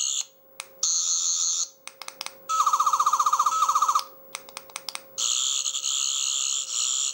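8th Doctor toy sonic screwdriver playing the 11th Doctor's sonic sound effects as its side button is pressed: short electronic warbling buzzes, a faster pulsing tone about two and a half seconds in, then a long warbling buzz from about five seconds in, with small clicks in the gaps.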